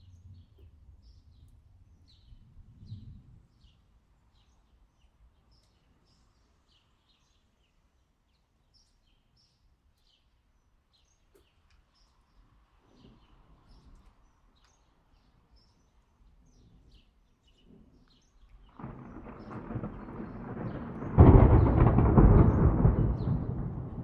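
Thunder: a rumble sets in a little before the end and breaks into a loud peal near the end, then starts to roll away. Faint, scattered bird chirps throughout.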